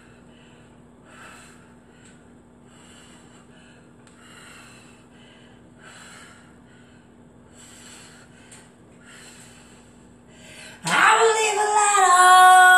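A woman breathing hard from exertion during a set of kneeling squats, a heavy breath about every second and a half. About eleven seconds in comes a sudden, loud, drawn-out wordless vocal cry that drops in pitch at the end.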